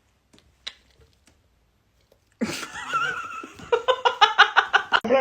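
A person laughing: a sudden loud vocal outburst about halfway in, then a quick run of giggling bursts, several a second.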